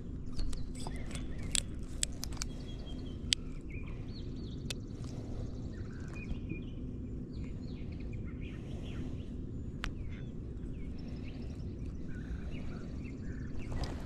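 Birds chirping over a low steady rumble, with scattered sharp clicks and ticks, most of them in the first few seconds.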